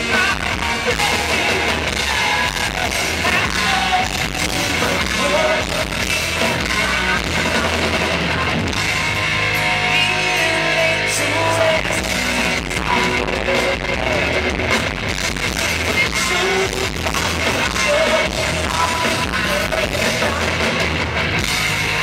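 A rock band playing live at full volume, heard from within the crowd: distorted electric guitar over drums and bass.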